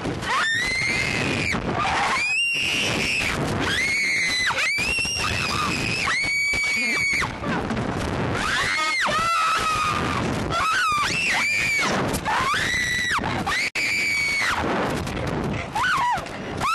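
Two girls screaming again and again while launched and bounced on a slingshot (reverse bungee) ride: a dozen or so long, high-pitched screams of about a second each, over a steady rushing noise.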